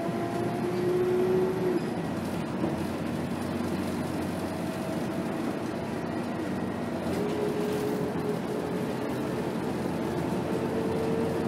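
Cabin noise inside a Scania K280 rear-engined diesel city bus under way: steady engine and road rumble, with a faint drivetrain whine that drops out about two seconds in and comes back higher-pitched around seven seconds.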